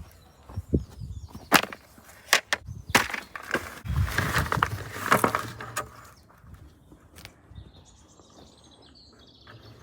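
A hand digging tool striking and scraping stony dirt: a series of sharp, irregular knocks, with a longer scrape of loose soil about four seconds in.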